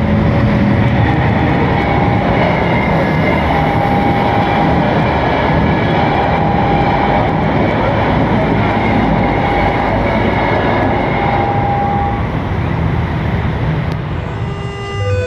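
Train running past: a steady, loud rumble and rail noise that eases slightly near the end.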